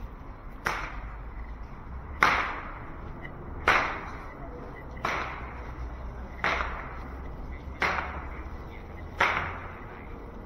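A sharp crack repeats at a steady pace, about once every second and a half, seven times, each followed by a short ringing echo, over a steady low hum.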